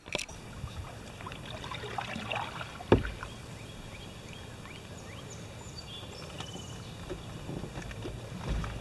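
Canoe paddling: paddle strokes and water moving against the hull over a steady low rush, with one sharp knock about three seconds in.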